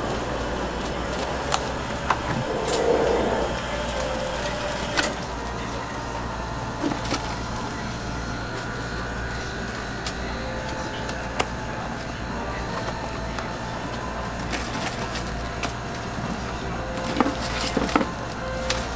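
Cardboard strawberry boxes and plastic-wrapped strawberry packs being handled: scattered sharp knocks, taps and crinkles over a steady low hum.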